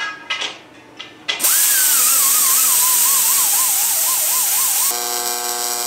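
An aluminum tube is set down on a steel table with a few knocks. About a second and a half in, a die grinder with a small abrasive disc starts on the tube's surface, giving a loud hiss with a wavering whine that slowly sinks in pitch as it bears on the metal. Near the end it gives way to a steady sound of many fixed tones.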